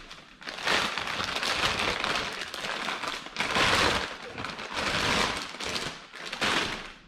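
Clear plastic bag crinkling and rustling in several irregular swells as a coilover shock absorber is pulled out of it and unwrapped.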